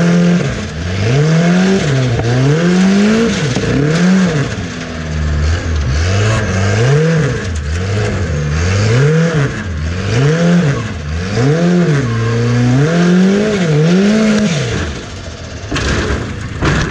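Formula offroad buggy's engine, heard from on board, revved up and down over and over, about one rise and fall every second and a half, under load on a steep dirt hill climb. Near the end the revving falls away and a sharp knock is heard.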